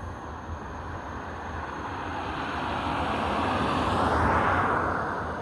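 A vehicle passing by: a steady rushing noise that grows louder over about four seconds, peaks near the end, then begins to fade.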